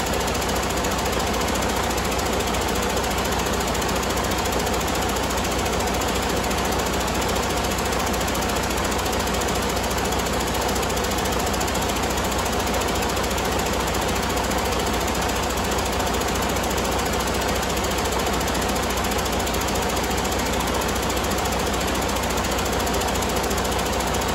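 Detroit DD15 14.8-litre inline-six diesel engine running steadily at idle, a rapid, even diesel clatter with no change in speed.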